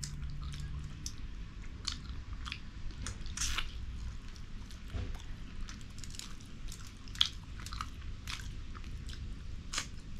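Close-miked chewing with wet, sticky mouth sounds and smacks: a person eating rice with fish curry, giving irregular sharp clicks several times a second.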